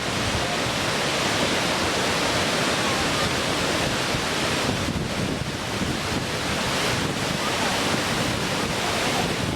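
Waterfall, a steady rushing noise of falling water.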